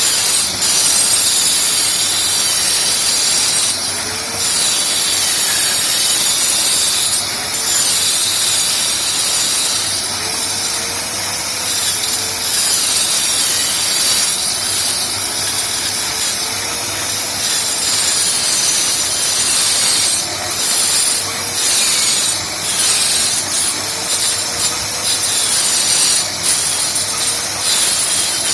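Homemade wood copying machine's power cutter running and cutting into wood: a loud, steady, high-pitched machining noise that dips briefly now and then as the cut eases off.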